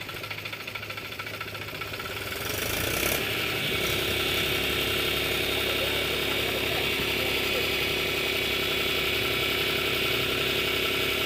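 Mahindra diesel tractor engine idling, then speeding up about three seconds in and holding at a higher steady speed while its hydraulics raise the sand-loaded tipping trolley.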